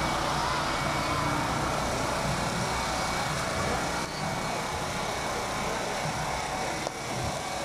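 A steady engine hum with faint crowd voices.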